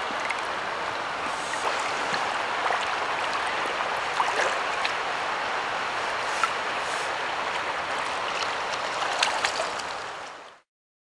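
Steady rush of flowing river water, with a few small splashes in the shallows. It fades out near the end.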